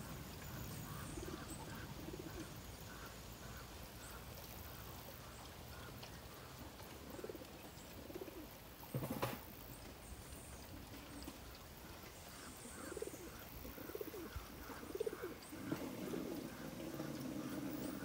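Doves cooing in series of low hoots, over a faint fast-repeating higher chirping. A single sharp knock comes about halfway through, and a louder low droning sound joins near the end.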